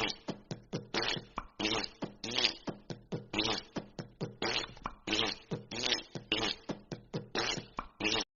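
A rapid string of short fart sound effects from a soundboard app, about five a second, some with a buzzing pitch, cutting off abruptly.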